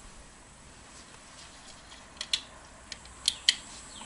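A few faint, sharp clicks over a quiet background, bunched in the second half.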